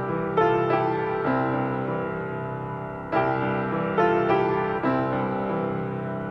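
Slow piano music: notes and chords are struck every second or so and left to ring out, with a stronger attack about three seconds in.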